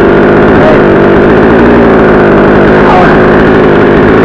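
62cc two-stroke chainsaw running loud and steady at high revs.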